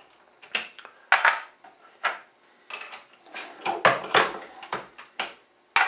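Empty .50 AE brass cases clinking as they are run through a single-stage reloading press's expander die and set back into a plastic loading block: about a dozen separate sharp clicks and clacks, irregularly spaced.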